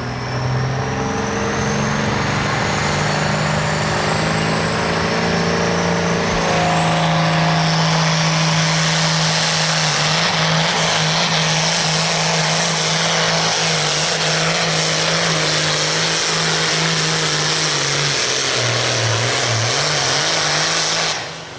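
Case 2394 pulling tractor's turbocharged diesel engine running hard under load as it pulls the sled, with a high whistle climbing in pitch over the first seven seconds. The sound cuts off suddenly near the end.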